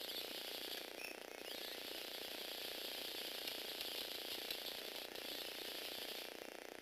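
Small electric motor and plastic Lego Technic gears whirring steadily as a two-wheeled Lego vehicle spins in place on a wooden floor, with a short dip about a second in.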